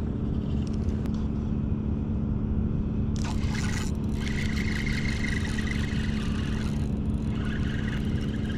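A steady low mechanical hum throughout, with a brief hiss about three seconds in and a faint higher whine from about four to seven seconds in.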